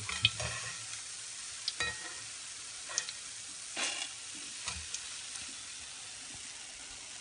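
Boondi (gram-flour batter drops) frying in hot oil in a steel kadai, a steady hiss that has settled down, the sign that the boondi is fried through. A perforated steel ladle clinks and scrapes against the pan and a steel strainer bowl several times as the boondi is scooped out.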